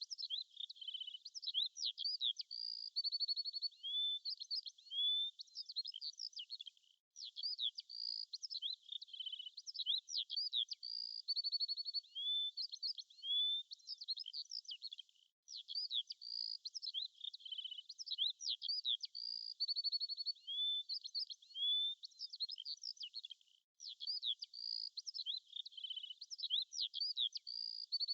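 Songbird singing a rapid, varied song of high chirps, whistled slurs and short trills, the same stretch of about eight seconds repeated with brief breaks between repeats; there is nothing in the low end.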